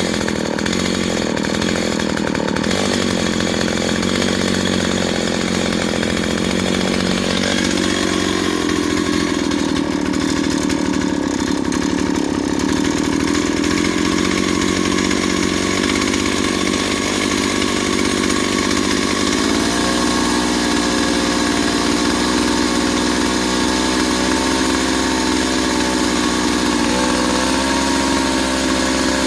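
Stihl 028 two-stroke chainsaw engine running with no cutting. It runs fast, drops in speed about a quarter of the way in, and settles into a steady idle about two-thirds of the way through. It still isn't running right, which the owner puts down to a leaking fuel line after a carburetor rebuild.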